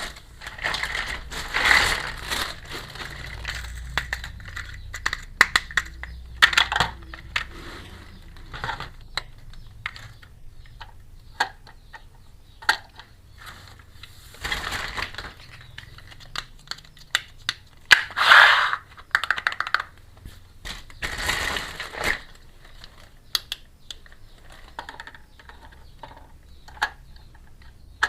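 Small plastic toy kitchen pieces clicking, tapping and clattering as they are handled and set down, with a few longer crinkling rustles of packaging spread through.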